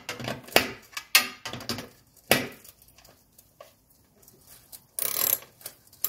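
Nuts and a wrench clicking and knocking on the studs inside the air cleaner housing of a Mercedes 300TD as the 10 mm nuts go on: four sharp knocks in the first two and a half seconds, then a brief scraping rustle about five seconds in.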